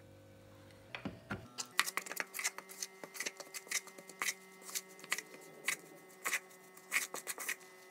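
A hand mixing and squeezing flour into wet bread dough in a bowl: irregular soft squelches and sticky clicks, a few a second, starting about a second and a half in.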